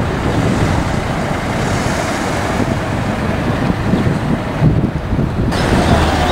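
Outdoor city ambience: a steady wash of road traffic with wind buffeting the microphone. The sound changes abruptly about five and a half seconds in, where one recording is cut to the next.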